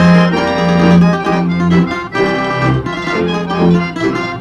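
Accordion playing a Slovak folk tune without singing, chords held over a bass line that changes every half second or so.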